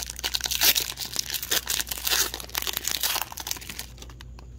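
Foil wrapper of a hockey card pack being torn open and crinkled, a dense crackle that dies away about three and a half seconds in, followed by a few faint ticks as the cards are slid out of the pack.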